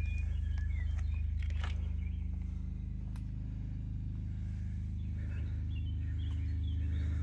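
A steady low mechanical hum, an engine running at constant speed, with a few faint bird chirps over it.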